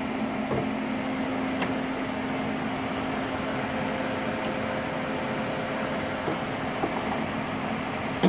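Ford Fiesta's electric radiator cooling fan running with a steady whirring hum on a cold engine: it is stuck on because of a faulty fan relay. A single sharp click comes about a second and a half in, and a short knock right at the end.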